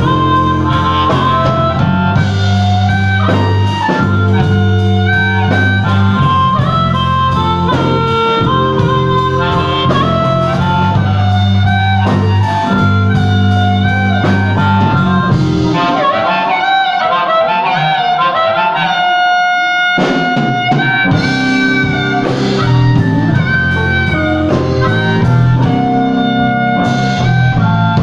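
Live blues band: an amplified harmonica, cupped against a microphone, plays a solo of held and bent notes over bass guitar and drums. Just past halfway the bass and drums drop out for a few seconds, leaving the harmonica alone, and then the band comes back in.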